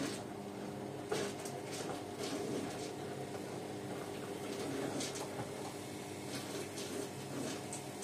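Hotpoint Ariston front-loading washing machine on a quick 30-minute wash, its drum turning with a steady motor hum while wet laundry tumbles with repeated swishes and soft thuds. The drum has stopped turning by the end.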